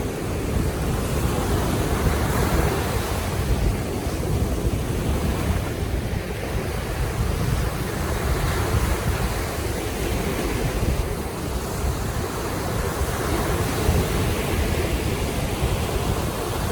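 Baltic Sea waves washing in, a steady surf that swells and eases every few seconds, with a low wind rumble on the microphone.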